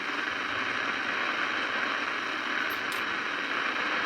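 CB radio receiver hissing with open-channel static, no station coming through: the operator's call has gone unanswered, which he takes to mean his signal isn't getting out.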